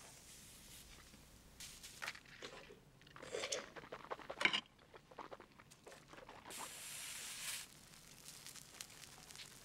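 Plastic wrap and paper crinkling and tearing in a run of small crackles. A little later comes about a second of steady hiss as sugar is poured from a paper straw onto slices of bread.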